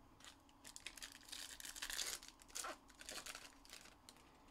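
A Panini Contenders Baseball trading-card pack being torn open, its wrapper crinkling in a run of short rips, loudest about two seconds in.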